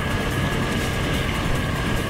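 Suzuki KingQuad 750 ATV's single-cylinder engine running steadily while the quad rides along a dirt trail.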